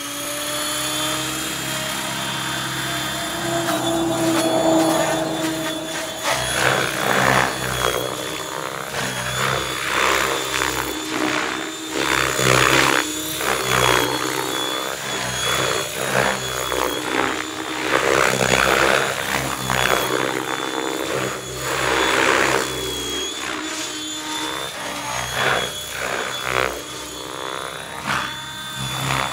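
Electric RC helicopter (Mikado Logo 600 with a Kontronik Pyro 650-103 motor on 6S) in flight: a steady motor whine under the main rotor's whoosh, which surges and fades again and again as it manoeuvres.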